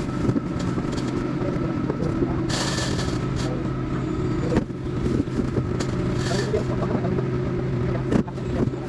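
Boat engine running steadily at a constant low drone, with scattered knocks and clicks and two short hisses, about two and a half and six seconds in.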